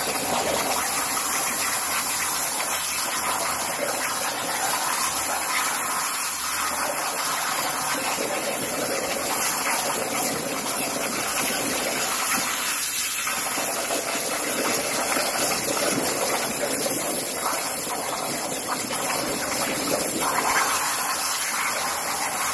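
Machine-mounted plasma torch cutting steel plate on a water table: a steady hiss and rush of the plasma arc and its gas jet, with a watery gushing underneath.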